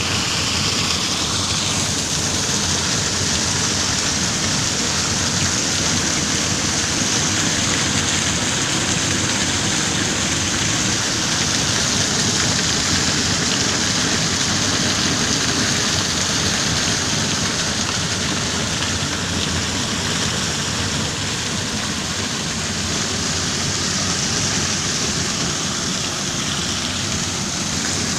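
Heavy rain falling steadily, an even, loud hiss that does not let up.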